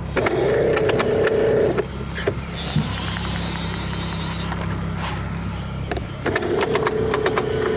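Single-action fishing reel's click ratchet buzzing as line is pulled off by a hooked fish, twice in long runs, with quick clicking between them, over a steady low outboard-motor hum.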